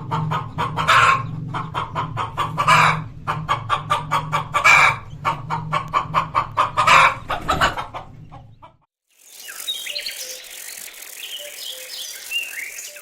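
Chickens clucking in quick runs, with a louder call about every two seconds, over a steady low hum. The clucking stops just before 9 seconds in. After a short silence, a different stretch follows: a noisy background with small high bird chirps.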